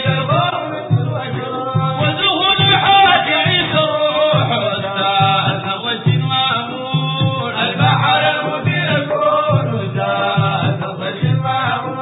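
Sudanese madeeh, a Sufi song in praise of the Prophet: voices singing in a chanting style over a steady, repeating drum beat.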